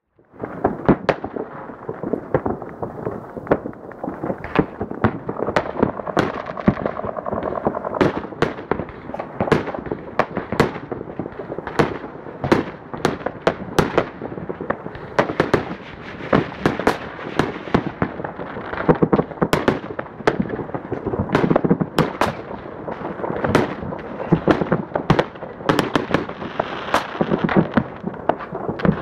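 Fireworks and firecrackers going off in a dense, continuous barrage: many sharp bangs in quick, irregular succession over constant crackling.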